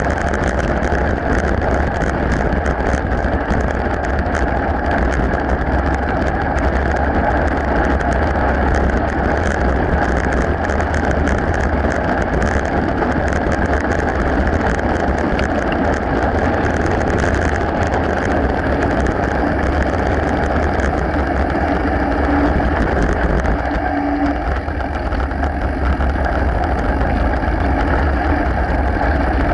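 Wind buffeting a moving action camera's microphone together with mountain-bike tyres rolling over a gravel path. It is a steady low rumble and rush with constant small clicks and rattles from the gravel and the bike. It dips briefly about three-quarters of the way through.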